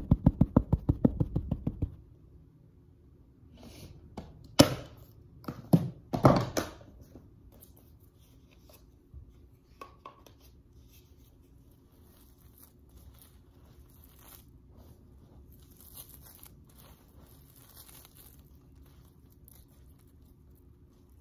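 A hand rapidly patting a carpet, about ten pats a second for the first two seconds. This is followed by a few louder scrapes and then soft rustling as clumps of vacuum dust and lint are pulled apart.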